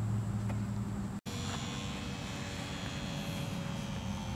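Electric motor and propeller of a HobbyZone Super Cub S RC airplane buzzing steadily in flight, heard under a steady outdoor hiss. The sound cuts out for an instant just over a second in.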